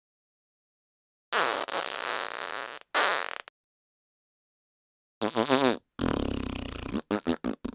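A series of separate fart sound effects cut one after another with dead silence between them. A long fart starts about a second in and is followed by a short one. After a pause come a short fart, a longer one, and then several rapid short sputters near the end.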